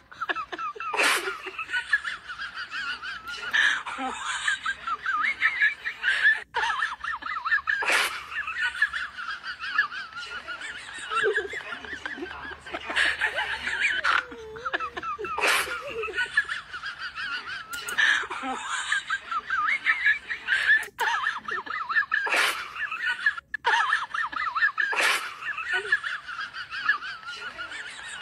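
A crowd laughing continuously: a canned laugh track laid over the clips.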